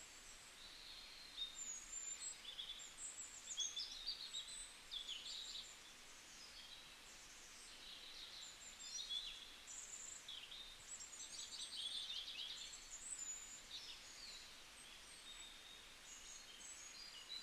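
Faint songbirds chirping: many short, quick, high calls and trills overlapping, loudest in the first half.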